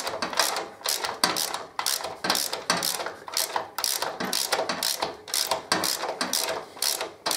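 Hand ratchet on a socket, its pawl clicking in quick repeated back-and-forth strokes as it runs a loosened nut off the motorcycle's swingarm mount bolt.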